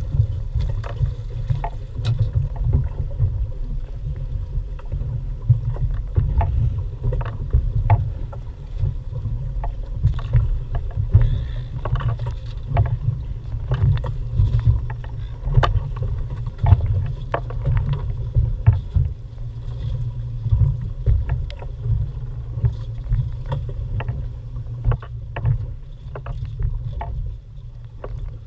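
Small open fishing boat on a choppy sea: a steady low rumble of wind and water against the hull, with frequent short knocks and splashes as a fish is brought alongside and the handline is worked.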